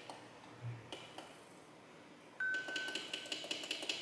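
Electric unicycle battery BMS sounding its alarm: a sudden rapid beeping starts a little over two seconds in, with a steady tone under it for about a second. The alarm is set off by a cell group being disconnected as the BMS tabs are desoldered.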